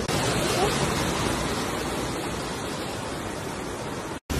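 Fast-flowing floodwater rushing through a street, a steady loud noise of torrential water. It cuts out for a moment near the end.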